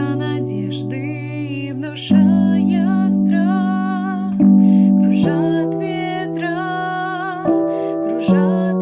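A woman singing a slow melody over sustained keyboard chords that change about every two seconds.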